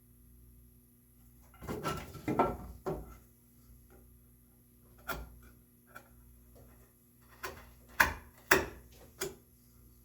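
Irregular wooden knocks and clunks. A short burst of clatter comes about two seconds in, then single sharp knocks follow at uneven gaps of about half a second to a second and a half, the loudest near the end.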